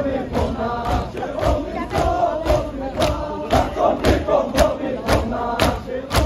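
A large crowd of Shia mourners performing matam: many men chanting in unison while beating their chests together, about two sharp slaps a second.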